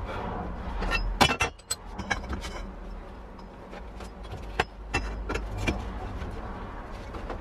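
Sharp metallic clinks and knocks of a steel tube being handled and clamped in a bench vice, loudest a little after a second in, over a steady low hum.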